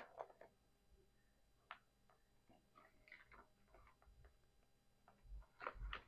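Near silence with faint clicks and soft taps of a cardboard product box being handled, a little louder near the end as the box is lowered.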